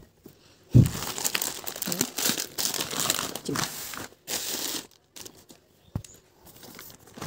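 Plastic shopping bag crinkling and rustling as groceries are handled and taken out of it, opening with a soft thump and running in irregular stretches for about four seconds. After that come a few short rustles and a single knock.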